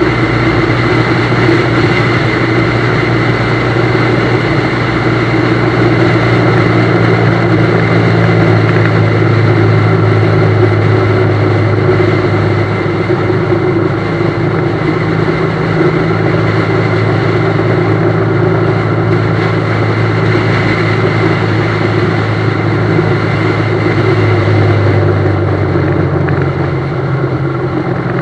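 BMW GS motorcycle engine running steadily while under way, over a constant rushing noise. Its note shifts about halfway through and drops a few seconds before the end.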